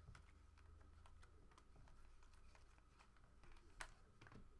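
Faint, scattered light clicks and slides of stiff chromium-stock Donruss Optic trading cards being flipped through by hand, with one sharper click near the end, over a low steady hum.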